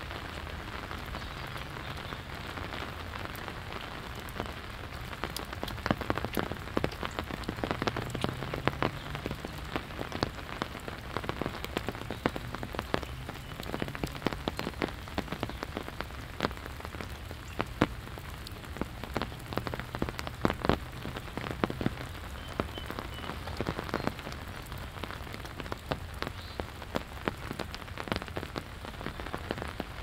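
Steady rain falling, with many sharp, close drops landing through most of it.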